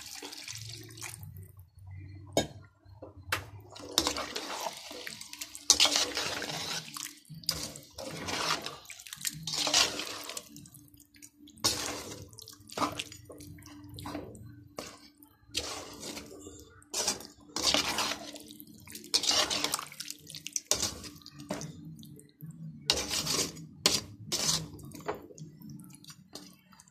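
A perforated metal ladle stirring freshly watered-down chicken gravy in a metal pot: repeated wet sloshing and scraping strokes, one every second or so, over a steady low hum.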